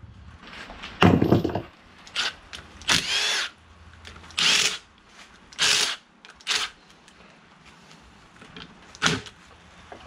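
About seven short, separate bursts of tool noise on the differential parts, each under half a second, the loudest about a second in.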